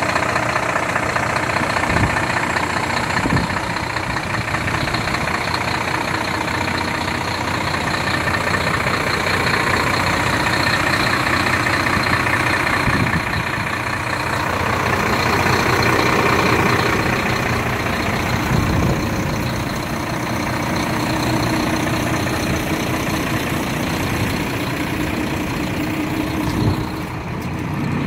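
A 2012 Volvo FM truck's diesel engine idling steadily.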